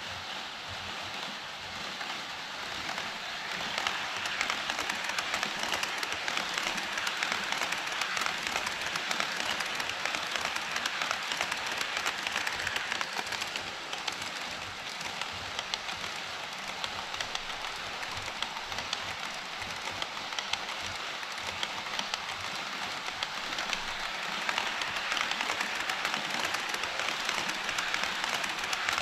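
HO scale model train running on KATO Unitrack: a steady rattling hiss of wheels on rail, thick with rapid fine clicks, getting louder about four seconds in and again near the end.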